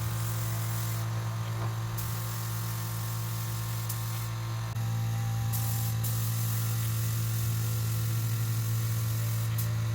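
VEVOR 8-gallon electric air compressor running with a steady hum while a spray-paint gun hisses. The hiss stops for about a second a second in and again around four and a half seconds in, as the trigger is let go.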